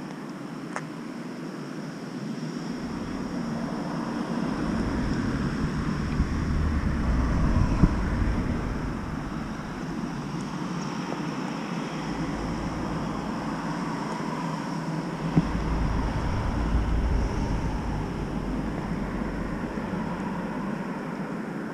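Wind buffeting a moving action camera's microphone, rising and falling in deep rumbling gusts, with a steady hiss of travel along a paved path. Two sharp knocks stand out, about 8 seconds in and again about 15 seconds in.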